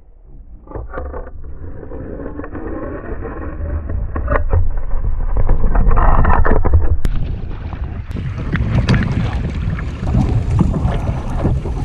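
Wind buffeting the microphone with a steady low rumble while choppy waves wash and slap against plastic fishing kayaks, with a few short knocks. It grows louder about four seconds in.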